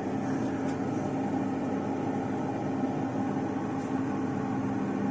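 Steady hum of a small electric fan, with a low even drone underneath.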